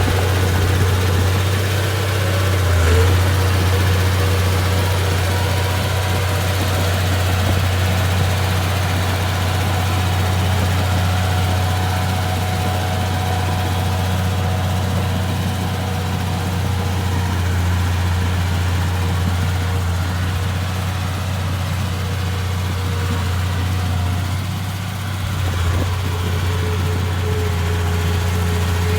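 Bulldozer's diesel engine running steadily at a low, even drone, with brief dips in its note about three seconds in and again near the end.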